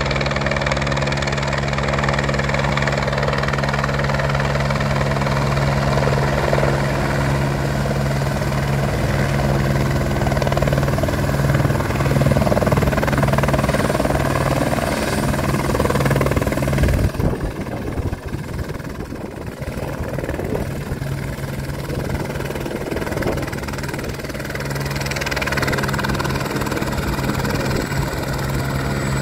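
Light helicopter coming in to land, its rotor and turbine engine running steadily and loud. About two-thirds of the way through its sound drops sharply and then runs on at a lower level after touchdown.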